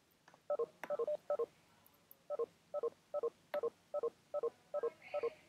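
Rapid, short telephone-style electronic tones, about five a second, coming through a video call's audio. A brief first run is followed by a pause of about a second, after which the tones go on steadily.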